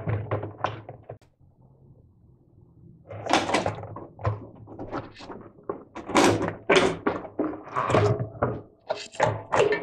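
Irregular knocks and thunks, from about three seconds in, as a washing machine's heavy concrete front counterweight is lifted and fitted into place around the tub and rubber door seal.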